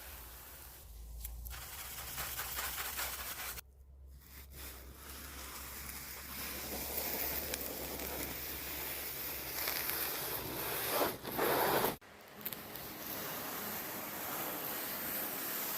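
Rustling, scrubbing noise from cleaning a keyboard, with no steady tone. It cuts off abruptly about four seconds in and again about twelve seconds in.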